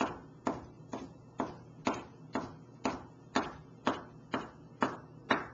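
Knife chopping steadily on a wooden cutting board, mincing raw sashimi-grade tuna: evenly spaced knocks, about two a second.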